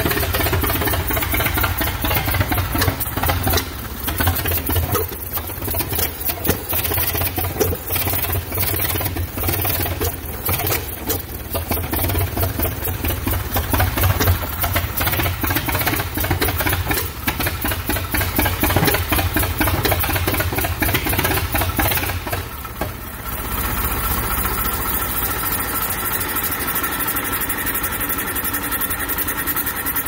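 1914 Holt 45 hp combine harvester engine running on its first run, its firing beats uneven and swelling in loudness. About two-thirds of the way through it dips briefly and then settles into a steadier, smoother run.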